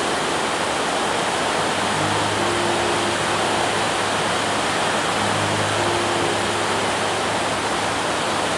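Heavy rain falling in a steady, dense hiss on a corrugated metal roof overhead and on a grassy yard, with runoff pouring off a shed's roof edge.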